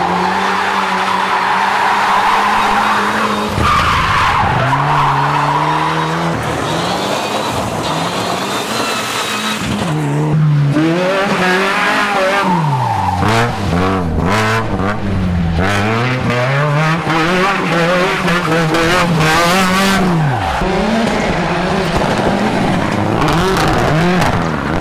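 Rally cars driven hard: engines revving up and dropping back over and over as the drivers change gear and lift off, with tyres squealing as the cars slide, most strongly in the first few seconds.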